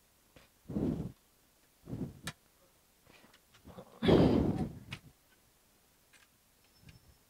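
Objects being handled and moved about on a workbench: three short scraping, rustling bursts, the longest and loudest about four seconds in, with a few light clicks between them.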